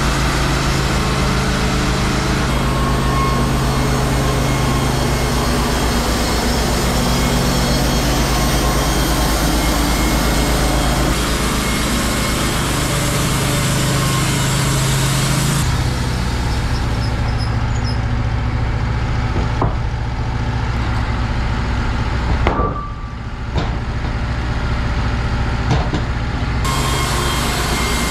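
Wood-Mizer LT15 Wide band sawmill's engine running steadily while the band blade saws through a log, with a loud cutting hiss over the engine. Partway through, the cutting hiss drops away for several seconds, leaving the engine with a few sharp knocks, and then returns near the end.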